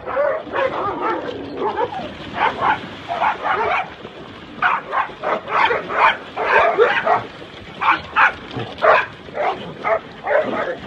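Golden retrievers barking and yipping in a quick, irregular string of short barks, about two a second.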